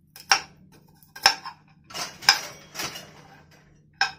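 A small metal spoon clinking and scraping against a nonstick frying pan in five or six short strokes, pressing on crisp roasted fox nuts (makhana) to break one open.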